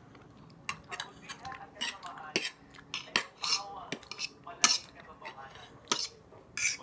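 Metal forks clinking and scraping against plates as noodles are twirled and lifted, in irregular sharp clicks, some ringing briefly, with the loudest about two-thirds of the way through.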